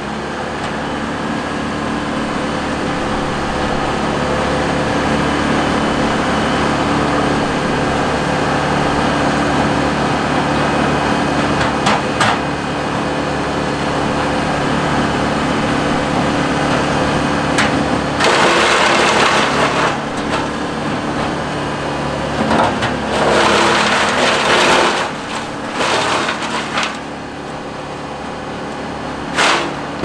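Bandit wood chipper and excavator engines running steadily, with loud surges of crunching and splintering as wood is fed into the chipper, about eighteen seconds in, again for several seconds a little later, and once more briefly near the end.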